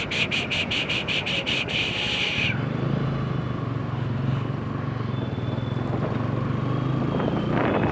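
Motorcycle engine running at a standstill, a steady low hum. For the first couple of seconds a rapid pulsing high-pitched tone, about three or four pulses a second, sounds over it and then stops abruptly.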